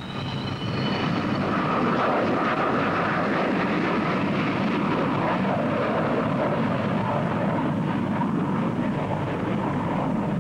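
Jet noise from the four turbojet engines of the Buran analogue test aircraft as it lands: a steady, dense rush with a high whine rising in pitch during the first second.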